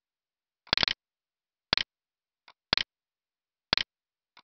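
Sharp ticking clicks evenly spaced about once a second, each a quick cluster of two or three ticks, like a clock ticking.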